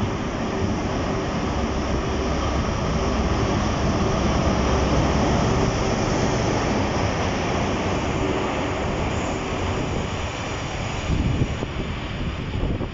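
A Class 43 HST diesel power car runs slowly past along the platform with a steady engine note, loudest about halfway through, followed by the wheel noise of the yellow Network Rail test coaches rolling by.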